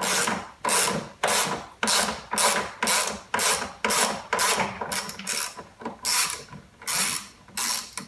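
A socket ratchet clicking in repeated raspy strokes, about two a second, as it is worked back and forth to unscrew a washing machine's 10 mm transport bolt.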